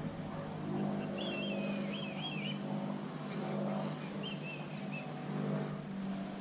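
A steady engine drone that swells about a second in and again near the end, with a small bird chirping a short warbling phrase twice.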